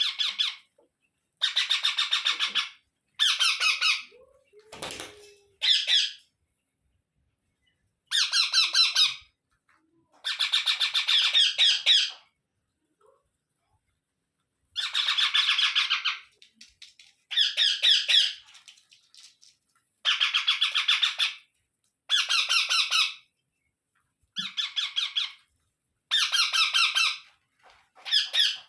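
Indian ringneck parakeet chicks giving begging calls while a parent feeds them by regurgitation. About a dozen bursts of rapid, pulsed squawking, each one to two seconds long, come with short silences between them.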